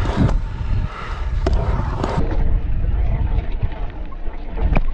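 Stunt scooter wheels rolling over a concrete skatepark bowl with a steady low rumble, broken by a few sharp knocks of the scooter against the concrete, the loudest near the end.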